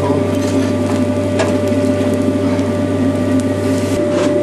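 Steady hum of the coal forge's air blower, with a sharp knock about a second and a half in and another near the end.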